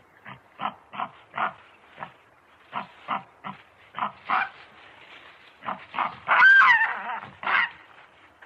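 Baboon calls: a run of short grunts, then a louder, higher call about six seconds in that rises and falls in pitch, followed by another grunt.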